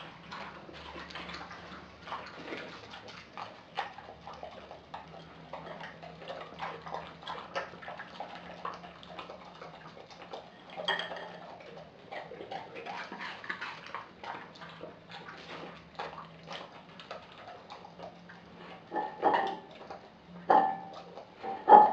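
Australian Kelpie eating raw food from a glass bowl: continuous wet chewing, licking and small clicks of teeth on food, with a few louder knocks of the glass bowl near the end.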